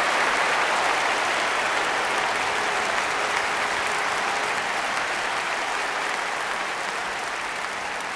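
A steady, even rushing noise with no voice or tune in it, slowly fading.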